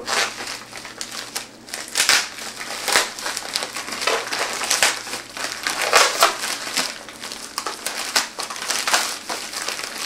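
Plastic express shipping mailer being crumpled and pulled open by hand: an irregular crinkling rustle with louder crackles every second or so.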